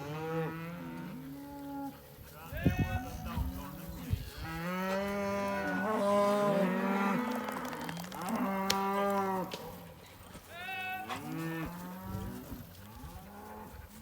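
Several cattle mooing and bawling, their calls at different pitches overlapping almost without a break and loudest in the middle stretch. A few sharp knocks sound a few seconds in.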